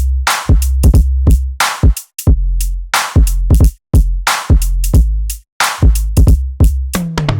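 An electronic drum-machine beat played back from a DAW: long 808 bass notes under sharp kick and snare or clap hits in a steady pattern. Near the end, one 808 note glides down in pitch.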